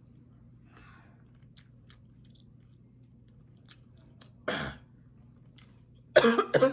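A woman coughing, once about two-thirds of the way in and then twice in quick succession near the end, louder, with faint chewing clicks in between: she is coughing from the heat of 2X spicy buffalo chicken wings.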